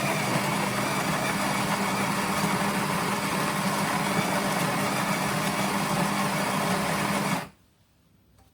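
La Saine X espresso machine's built-in coffee grinder grinding an 18-gram dose of beans: a steady motor hum with dense grinding noise, cutting off suddenly about seven and a half seconds in.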